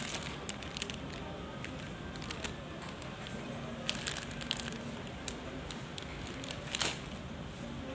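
Shop-floor background: a low murmur of distant voices with scattered sharp clicks and rattles, the loudest about seven seconds in.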